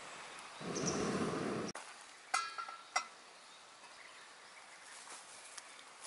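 Low rumbling gusts of wind on the microphone for the first second or two, cut off abruptly. Then a quieter outdoor background with two short, sharp high sounds less than a second apart.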